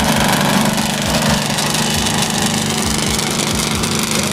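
Racing cars and motorcycles idling as they roll slowly past, a steady engine sound with no revving.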